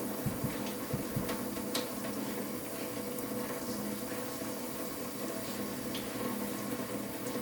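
Water running steadily through household plumbing, a constant rushing hiss over a steady hum, with a few light knocks in the first two seconds.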